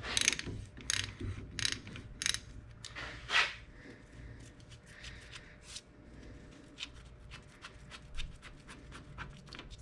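Scattered light clicks and scraping from hand-tool work at a rear differential's square-drive fill plug, which has just come loose.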